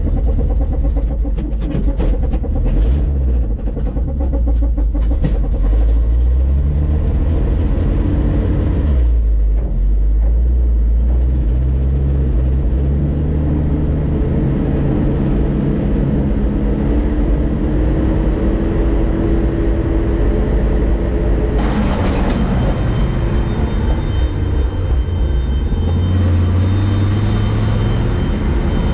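Heavy vehicle engine running under load, its pitch rising and falling as it revs and changes speed, with a change in the sound about two-thirds of the way through.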